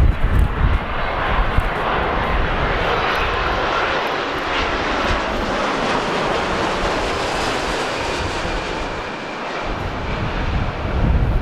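Twin-engine jet airliner, a Boeing 787 with its landing gear down, passing low overhead on approach. The engines give a steady jet roar that eases somewhat as the aircraft moves away near the end.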